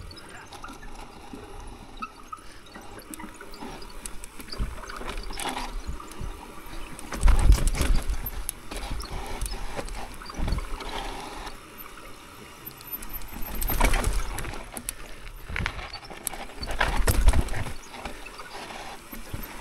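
Mountain bike riding down a rocky dirt trail: tyres rolling and scrubbing over dirt and rock, with knocks and rattles from the bike and wind rumbling on the helmet camera's microphone. Several louder, bumpier stretches come through, the heaviest about a third of the way in and again in the second half.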